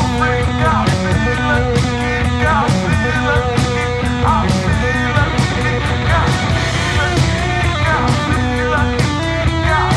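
Rock band recording: electric guitar over bass and a steady, evenly spaced drum beat.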